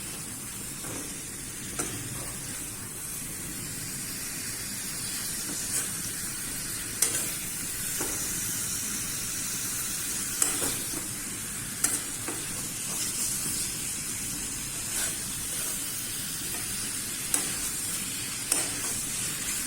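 Pieces of young gourd frying with spices in oil in a pan, sizzling steadily, while a spatula stirs them and clicks against the pan now and then.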